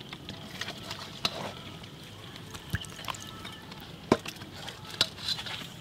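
Scattered light clicks and taps, several in all, over a faint steady background hiss.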